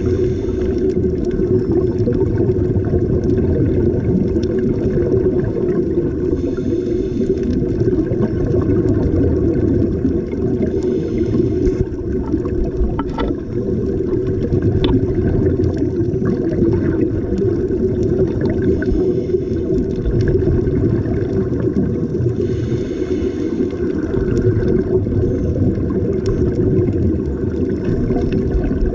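Underwater sound: a steady low rumble with bursts of bubbling every few seconds as scuba divers exhale through their regulators.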